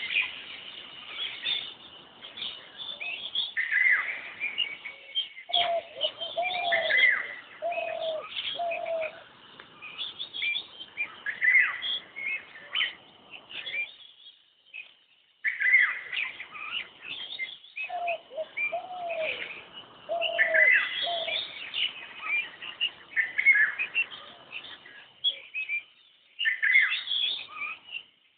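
Asian koel (koyal) calling: two runs of four or five repeated, evenly spaced notes, with other small birds chirping busily.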